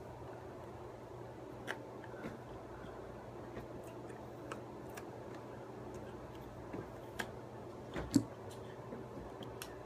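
Faint scattered clicks and taps of hands meeting while signing in American Sign Language, over a steady low hum, with one sharper knock about eight seconds in.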